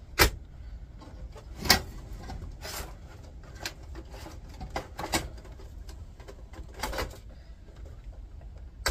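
CD drives being pulled out of the bays of a steel computer-tower chassis: metal sliding and scraping, with several sharp clunks and knocks spread through.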